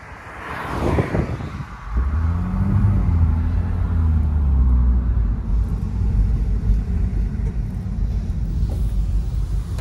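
A car engine running with low road rumble as the car drives. The engine note rises and dips slightly a couple of seconds in.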